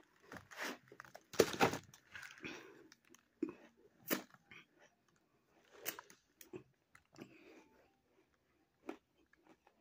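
Close-up mouth sounds of someone biting and chewing a lump of half cornstarch, half plain ice: irregular crunches, loudest about a second and a half in, growing sparser toward the end.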